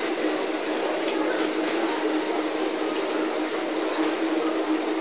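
Airport shuttle train running: a steady rumble of wheels and motors with an unchanging low hum.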